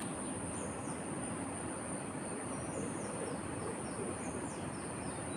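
A continuous high insect drone with a bird repeating short falling chirps through the middle, over a steady low rushing noise.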